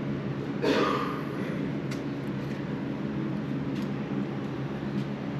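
Steady machine hum with a few light clicks, and a short louder rustle about a second in.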